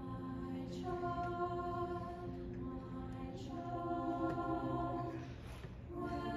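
Mixed-voice choir singing long, held chords, phrase by phrase, with short breaks for breath about a second in, past three seconds in, and a longer one near the end.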